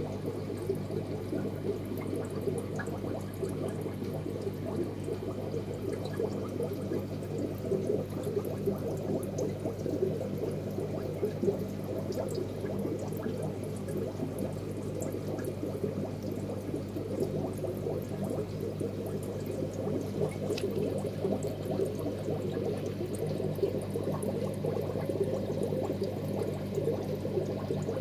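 Steady bubbling and gurgling of water over a low, steady hum.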